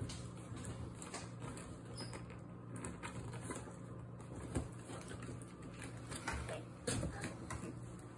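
Fingers scratching and picking at packing tape on a cardboard box, with light scattered taps and a couple of sharper knocks on the cardboard.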